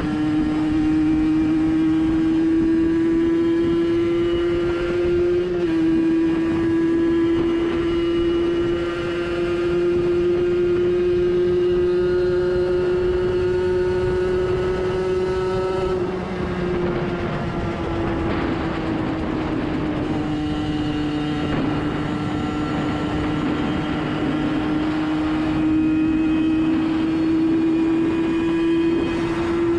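Junak Furious 50's 50 cc two-stroke single, a copy of the Minarelli AM6, running hard at cruising speed. Its pitch slowly climbs, falls away for a few seconds just past the middle as the throttle eases, then climbs again. Wind rushes past the microphone.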